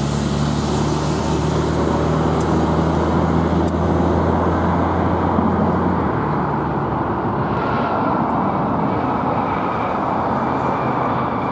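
Embraer E170/175 regional jet's twin turbofan engines and airflow during touchdown and rollout: a steady rushing roar under a low hum that stops about halfway through.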